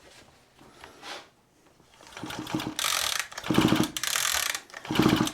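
Hitachi chainsaw's recoil starter pulled several times, starting about two seconds in. Each pull spins the engine with a rapid whirring rattle, turning over freely with the spark plug out while it is checked for spark.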